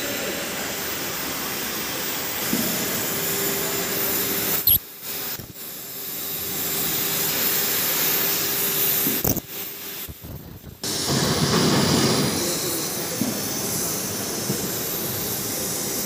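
Steady hissing of the oxy-fuel cutting torch on a CNC profile gas cutting machine, cutting steel plate. The hiss drops away abruptly twice, for a second or so each time.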